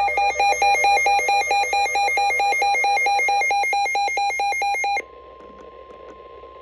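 Midland weather radio's warning alarm: a rapid, warbling electronic beeping that alternates between two pitches and signals a severe thunderstorm warning. It cuts off abruptly about five seconds in, when the Weather/Snooze button is pressed, leaving a much fainter steady single alert tone that stops about a second and a half later.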